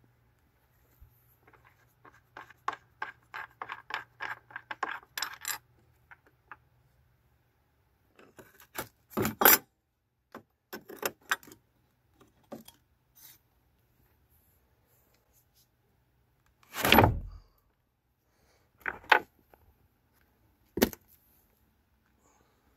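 Ratchet wrench with a 13 mm socket clicking rapidly, about four clicks a second, as the car battery's hold-down clamp bolt is undone, followed by scattered metallic clinks and rattles. Near the end, a heavy thump and two sharp knocks as the battery is lifted out and put down.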